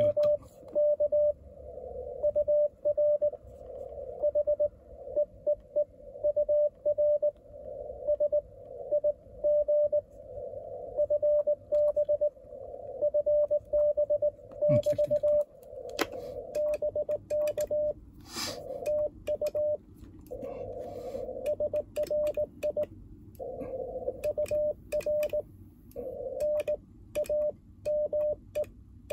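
Morse code (CW) tone of about 600 Hz from an Icom IC-705 transceiver. For the first half it is a received station's keyed signal, with band hiss behind it. About halfway through it changes to the rig's own sidetone as the operator sends on a Morse paddle: clean beeps with the paddle's clicks between them.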